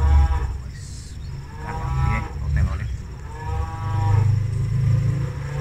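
Three drawn-out calls from a farm animal, each about half a second to a second long and about two seconds apart, the first the loudest, over a steady low rumble.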